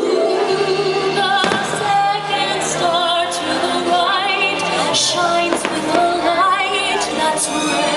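Fireworks show soundtrack music with a woman singing with vibrato, and a few sharp cracks from fireworks about a second and a half in and again around five seconds in.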